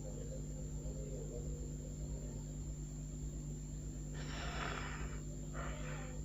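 A steady low hum runs throughout, with two short breathy puffs close to the microphone about four and five and a half seconds in.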